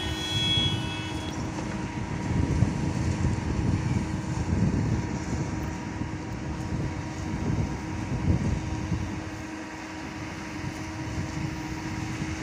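Jet airliner's engines at takeoff power heard from far off across the airfield: a low, rough rumble that swells and fades, over a steady hum.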